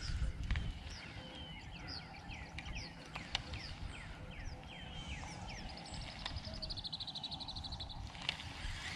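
Birds calling: a series of short down-slurred chirps, then a fast, high, even trill from about six to eight seconds in, over a steady low rumble.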